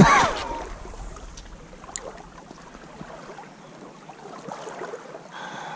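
A short voiced grunt or exclamation right at the start, then water swishing gently around the legs of a wading angler, with a faint click about two seconds in.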